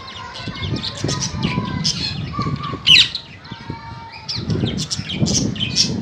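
Indian ringneck parakeets chattering with rapid high chirps and squawks, with one loud, shrill screech about three seconds in.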